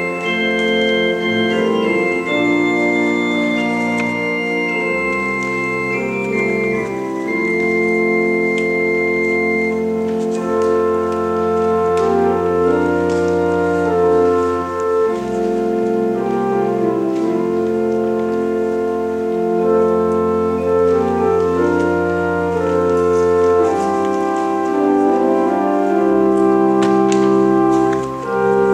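Organ playing slow, held chords over sustained deep pedal bass notes, the harmony changing every few seconds.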